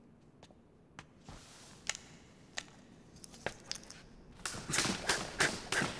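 Scattered sharp taps, then, from about four and a half seconds in, skipping ropes slapping the gym floor in a quick, even rhythm of about four strikes a second.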